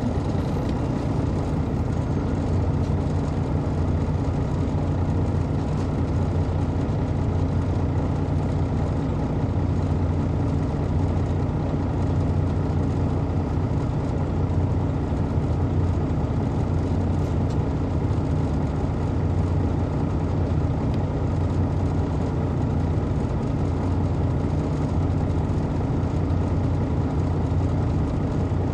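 Detroit Diesel Series 60 inline-six diesel of a 2002 MCI D4000 coach, heard from inside the bus and running at a steady, unchanging engine speed, a low drone.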